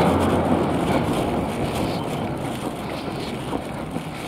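Street traffic noise: a vehicle engine hums close by and fades about a second in, leaving a steady wash of road noise with wind on the microphone.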